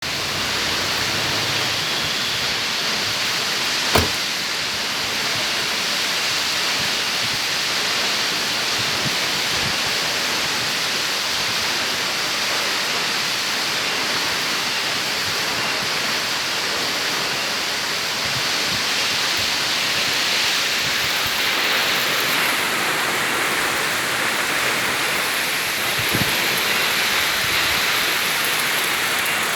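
Steady rush of the Sedudo waterfall's falling water, with a sharp click about four seconds in and a smaller one near the end.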